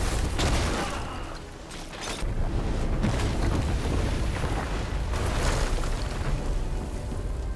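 Film explosion sound effects: a deep booming rumble with several sudden blasts and crashing, scattering debris.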